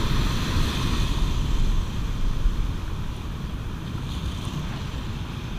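Ocean surf breaking and foaming around the waders in the shallows, with wind rumbling on the microphone. It eases a little after about two seconds.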